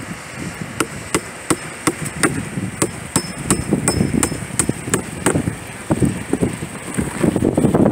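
Hammering: a steady run of sharp knocks, about three a second, that stops a little past halfway, over low outdoor wind noise.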